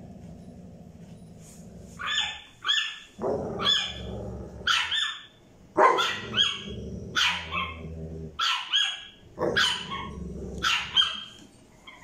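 Tiny French bulldog puppy yapping in about a dozen short, high-pitched barks, starting about two seconds in, demanding the toy from the older dog. Under the yaps runs a low, rumbling growl with brief breaks.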